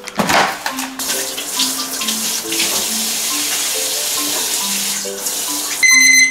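Water running steadily from a tap, with a loud high electronic beep near the end.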